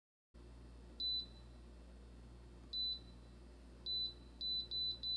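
Ommo air fryer oven's touch control panel beeping as its cooking timer is raised a minute at a time: six short, high beeps, the last four in quick succession. A faint steady low hum lies under them.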